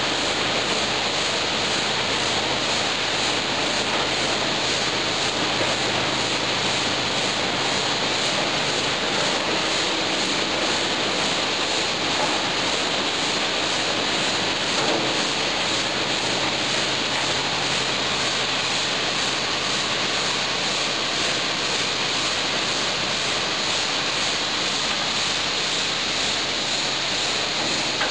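PET bottle crushing and washing line running: a steady mechanical drone with a low hum from its motors and conveyors, mixed with rushing water in the washing tanks.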